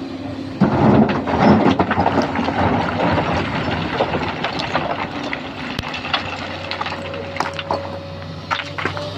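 Excavator tipping a bucket of mountain rock into a dump truck's steel bed, the stones crashing and clattering in, loudest in the first couple of seconds, then settling into scattered knocks over the steady hum of the diesel engine.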